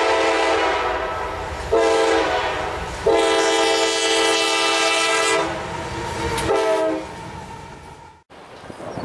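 Freight locomotive's multi-chime air horn sounding for a grade crossing over the low rumble of the approaching train. A long blast ends about a second in, followed by a short blast, a long one and a final short one. Near the end the sound cuts off abruptly and gives way to a steady noisy rumble.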